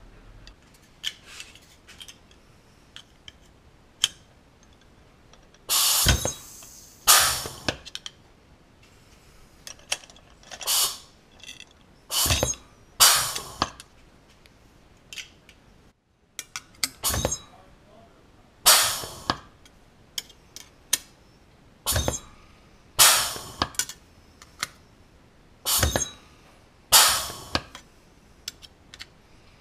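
Rivet-dimpling tool pressing dimples into thin aluminium sheet: sharp metallic clunks, mostly in pairs about a second apart, repeating every four to six seconds.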